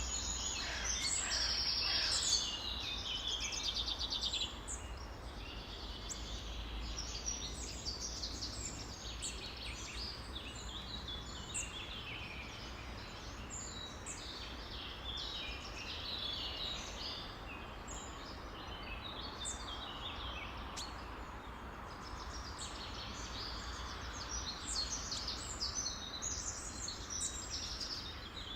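Many songbirds chirping and calling at once in a dense, overlapping chorus, over a steady low rumble.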